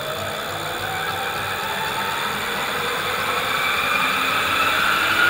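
Electric hub motor in the rear wheel of a Nyx e-bike, driven by an Adaptto controller, spinning the raised wheel up under throttle. Its whine rises steadily in pitch and grows louder as the wheel gathers speed.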